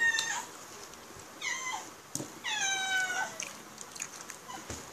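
Domestic cat meowing repeatedly, each call sliding down in pitch, the longest about two and a half seconds in: begging for the chicken being eaten.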